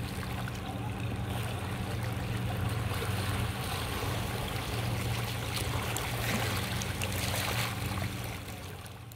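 Outboard motor of a small fishing boat running steadily offshore, a low hum, while its wake washes and splashes over the rocky shoreline. The sound fades away near the end.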